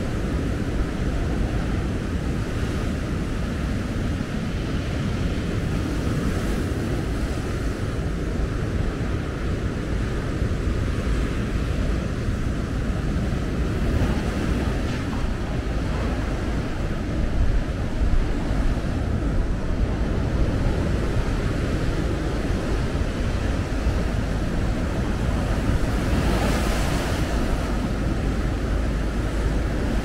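Sea waves breaking on the beach, a continuous rushing surf, with gusty wind buffeting the microphone; one wave crashes louder near the end.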